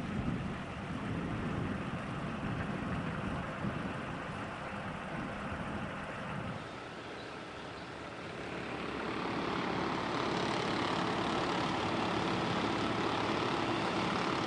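Gusty low rumble of wind on the microphone over a fast-flowing river. After a cut about seven seconds in, a steady engine drone takes over.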